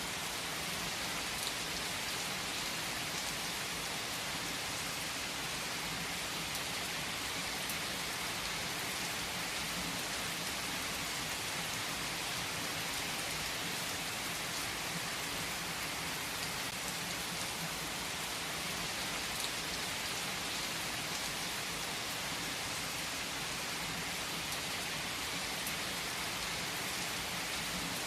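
Steady rain falling, an even hiss with a few faint clicks scattered through it.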